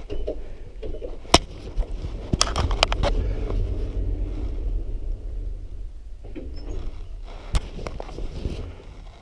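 A passenger lift travelling up: a low steady rumble from inside the car, broken by a few sharp clicks and knocks, the loudest about a second and a half in, a cluster around three seconds, and one more near the end.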